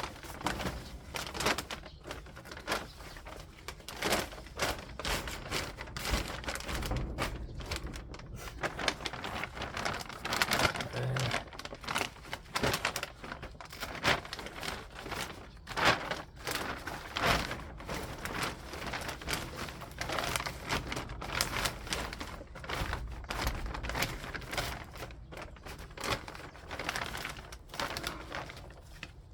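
Hand tool working dry soil: repeated irregular scraping and crunching strokes as earth is dug and moved to fill in the bed's edges.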